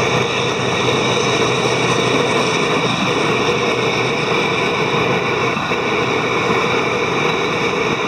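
Freight train's tank cars rolling past steadily: continuous wheel-on-rail noise with a steady hum that drops out briefly twice.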